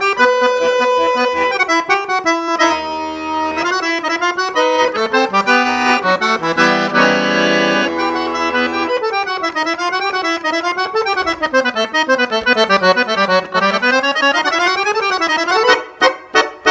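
Crucianelli chromatic button accordion playing a chamamé, with a full held chord partway through, then fast runs of notes rising and falling, and a few short, clipped chords near the end.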